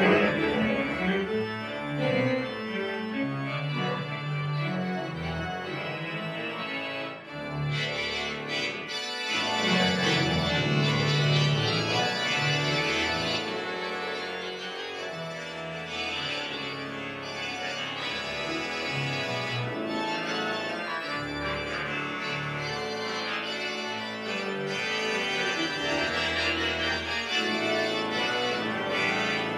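1979 Austin pipe organ playing a piece, with held chords changing over a moving bass line.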